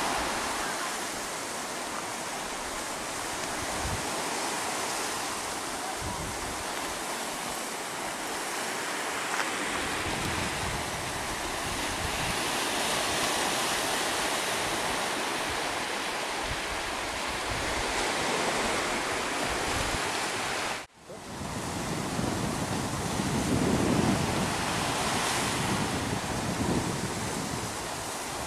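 Sea surf washing and breaking over shore rocks, a steady rush of water, with wind gusting on the microphone in low rumbles. The sound drops out for a moment about three-quarters of the way through.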